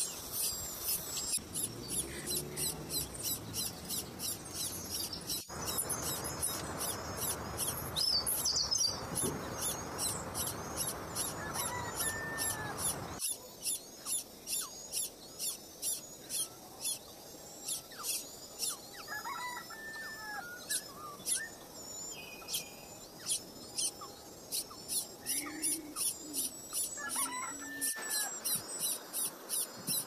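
Nestling birds in the nest cheeping: a fast, steady run of short high cheeps about two or three a second, with a few short sliding chirps now and then. A stretch of rushing noise runs through the middle.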